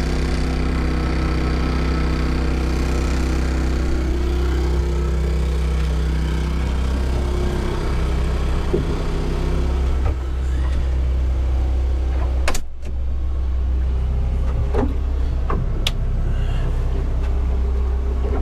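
An engine runs steadily with a low rumble and a hum that fades out about halfway through. A few sharp clicks come in the second half.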